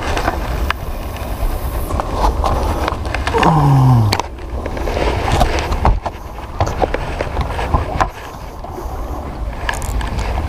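A spinning reel being cranked and handled aboard a small wooden boat: scattered clicks and knocks over a steady low rumble. About three and a half seconds in, a short falling tone sounds.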